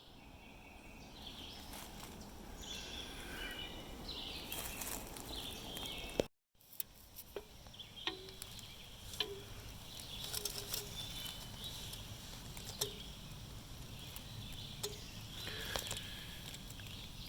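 Quiet morning woodland ambience with songbirds chirping in short calls, and scattered small clicks and taps.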